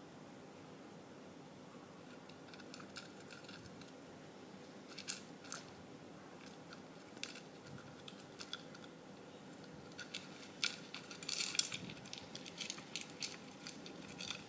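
Dwarf hamster rummaging in its food bowl, pushing food out: faint, scattered light clicks and rattles of seeds and pellets, growing busier near the end.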